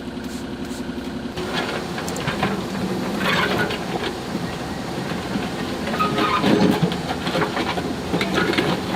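Construction machinery engine running steadily. After about a second and a half the sound changes abruptly to a busier mix of engine noise with irregular scraping and knocking.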